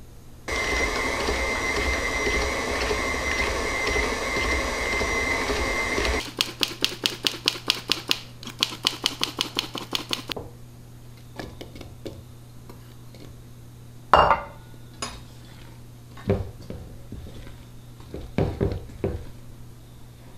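KitchenAid bowl-lift stand mixer running steadily with a high whine for about six seconds, then stopping. A hand flour sifter then clicks rhythmically over a steel bowl, about four clicks a second for four seconds. Near the end come a few scattered knocks of utensils against metal bowls and tins.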